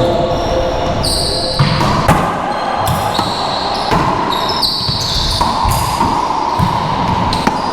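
A racquetball being struck and bouncing off the walls and floor of an enclosed court: irregular sharp knocks, several in a few seconds, over a steady background hum.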